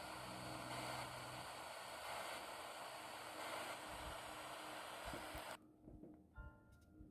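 Steady radio static hiss that cuts off abruptly about five and a half seconds in. Near the end come a few short, high electronic beeps.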